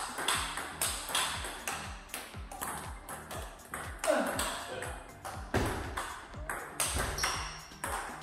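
Rapid sharp clicks of a table tennis ball struck by a paddle and bouncing on the table in a fast rally, several a second, over background music with a steady beat.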